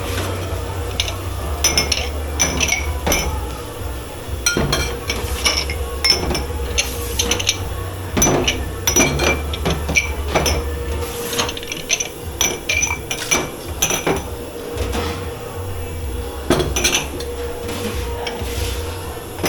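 Dishes, pots and cutlery clattering and clinking as they are handled in a commercial kitchen dish pit: many quick knocks, some with a short metallic or glassy ring. A steady low hum runs underneath, dropping away for a while after about eleven seconds.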